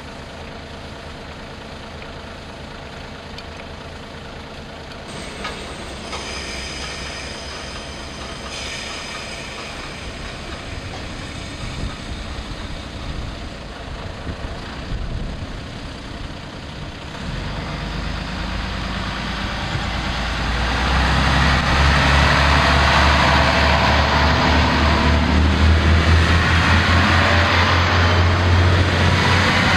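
Noto Railway NT100-series diesel railcar idling at a platform, then pulling away. Its diesel engine powers up and grows loud about twenty seconds in as the train passes close by, with a faint rising whine near the end.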